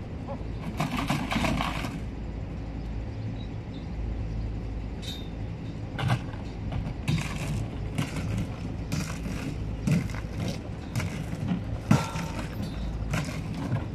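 Holstein dairy cows' hooves knocking and clattering on the loading ramp in a string of sharp impacts, thickest in the second half, over the steady hum of an idling truck engine.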